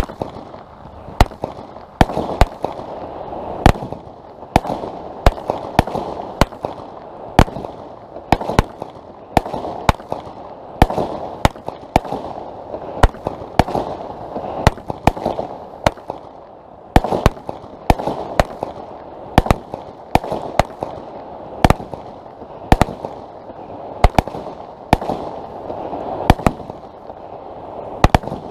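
Weco Rain of Glitter 50-shot, 22 mm consumer firework battery firing: a steady series of sharp bangs, roughly one or two a second, with a continuous noisy hiss between them.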